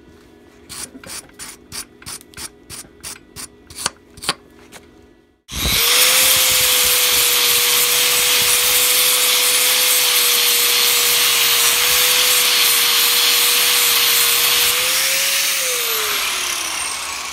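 About a dozen sharp taps over the first few seconds, then an angle grinder starts and grinds a weld bead on a steel pin's washer head, running at a steady pitch with a loud grinding hiss. Near the end it is switched off and winds down with falling pitch.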